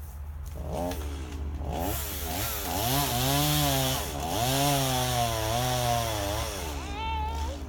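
Two-stroke chainsaw cutting into a pine, its engine pitch rising and falling again and again as it labours in the cut and picks back up.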